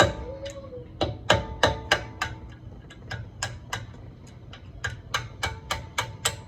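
Hammer tapping a flathead screwdriver against the pad retaining pin of a Brembo rear brake caliper to drive the pin out, in a steady run of sharp metallic taps, about three a second, each with a brief ring.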